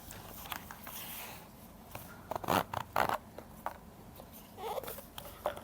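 Plastic packaging being handled and opened by hand: scattered rustles, scrapes and small clicks, louder about halfway through.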